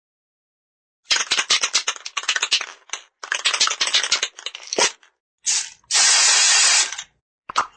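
Aerosol spray can shaken in two bouts, its mixing ball rattling rapidly inside, then a sharp click. The nozzle gives a short spurt and then a steady spray hiss of about a second, with a couple of small clicks near the end.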